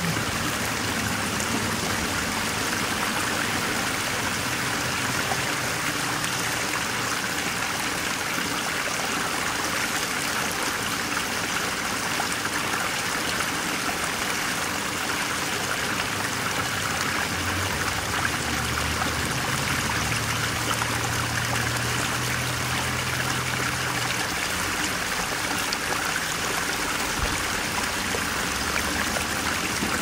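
Steady running water, like a stream trickling, as an even, unbroken rush. A soft low tone sounds underneath for a few seconds just past the middle.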